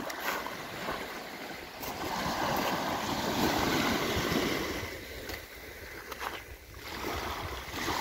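Small waves on a calm sea breaking and washing up a fine-pebble shore. The wash swells about two seconds in, eases off past the middle, and builds again near the end as the next wave comes in.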